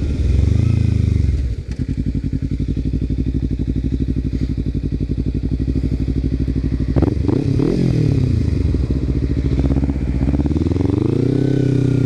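Kawasaki Ninja 300 parallel-twin engine through a Screaming Demon slip-on exhaust with no baffle fitted. It falls from a rev to a steady, pulsing idle, blips up again about seven seconds in with a few sharp clicks, then settles and revs rising near the end.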